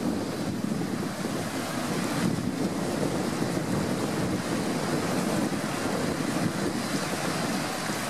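Sea waves washing and breaking around rocks along a rocky shore: a steady rush of surf with no clear separate crashes.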